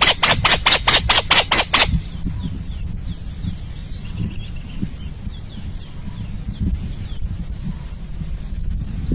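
Owl calling in a rapid series of harsh screechy pulses, about six a second, that stop about two seconds in. Faint small bird chirps follow over a low rumble, until a loud harsh screech bursts in near the end.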